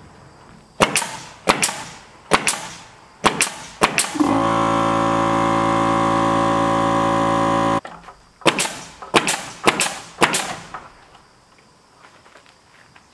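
Nail gun firing nails into wooden ceiling boards: five sharp shots about a second apart, then four more a few seconds later. In between, a steady, even-pitched machine hum runs for about three and a half seconds and cuts off suddenly.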